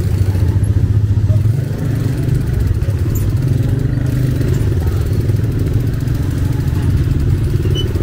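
Motorcycle engine running steadily close by, a low rumble among street traffic.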